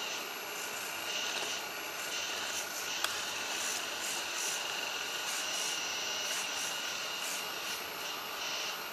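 Hydraulic pump of a 1:12 scale RC hydraulic excavator running with a steady high-pitched whine as the arm and bucket dig and curl, with one sharp click about three seconds in.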